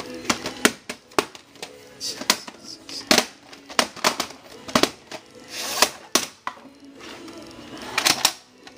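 VHS tapes and their plastic cases being handled, giving an irregular run of sharp clicks and knocks as cases and cassettes are picked up, opened and shifted about.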